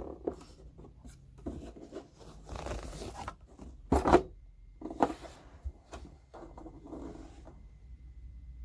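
Handling noise from reassembling a tower speaker's cabinet: irregular rubbing, scraping and knocks, the loudest knock about four seconds in.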